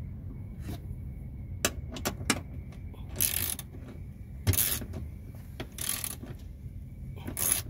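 Socket ratchet wrench tightening a nut onto a bolt, with a few sharp metal clicks and then four short bursts of ratchet clicking as the handle is swung back. A steady low hum runs underneath.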